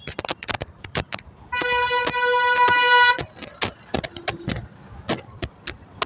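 A vehicle horn sounds one steady blast of about a second and a half, starting about a second and a half in. Short sharp clicks and knocks come and go throughout.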